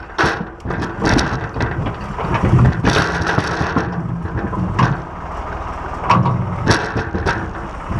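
Red oak firewood rounds tumbling out of a tractor's front-end loader bucket into a dump truck bed: a run of heavy wooden knocks and thuds, thickest in the first three seconds, with a few more near the end. The tractor's engine runs steadily underneath.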